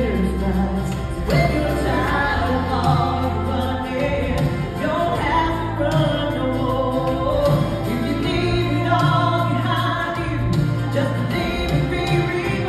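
A woman singing a Christian song into a handheld microphone over instrumental accompaniment with held bass notes.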